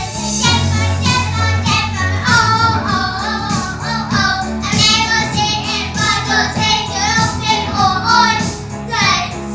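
Pop song: a high lead vocal sings over a steady bass line and beat.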